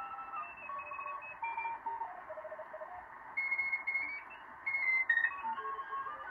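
uBITX HF transceiver receiving Morse code (CW) signals through its speaker over band hiss, being tuned across the 20-metre CW band. The beeping tones jump up and down in pitch in small steps as the tuning knob turns.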